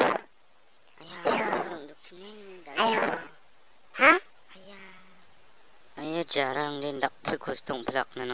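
A steady high cricket chirring runs under the cartoon's soundtrack. Over it come short voiced cries, then from about six seconds in a rapid, stuttering run of voice sounds.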